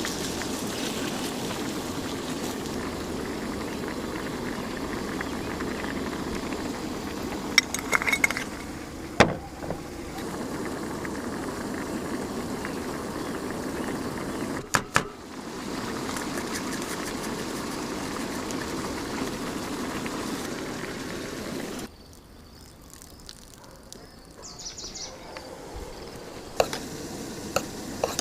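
Steady sizzle of food frying in a pan on a camp stove, with a few sharp clinks of a utensil against the pan. The sizzle cuts off abruptly about 22 s in, leaving a quieter background with a few more clinks.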